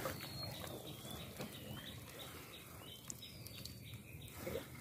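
Faint bird calls: a series of short, high, whistled chirps that glide up and down in pitch.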